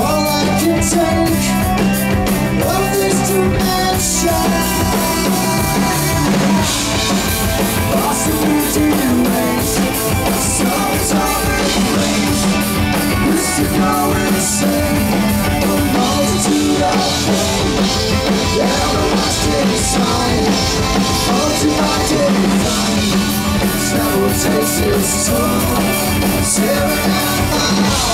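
Live progressive rock band playing loud: drum kit, electric guitar, bass and keyboards together, with no singing.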